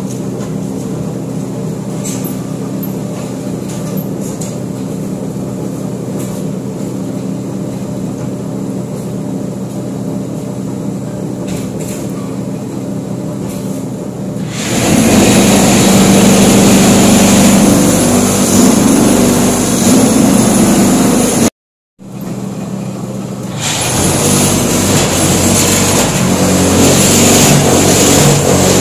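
Brick-plant machinery running steadily: a hum with several steady tones from the motor-driven clay conveyor belt. About halfway through, much louder, rougher machine noise takes over, drops out for a moment, then comes back.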